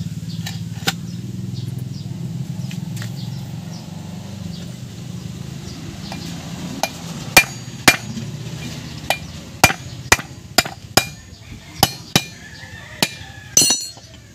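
About a dozen sharp metal-on-metal hammer blows, spaced unevenly through the second half, each with a brief ring. They come from hammering a drift seated in the centre bore of a Suzuki Multicab wheel hub to drive the wheel bearing into place. A low steady hum runs underneath in the first half.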